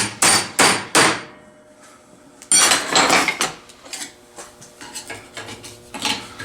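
Metal clanks and clicks from rusted, stiff vise grips locking pliers being handled and worked: three sharp knocks in the first second, then a clattering run of clicks about two and a half seconds in that trails off.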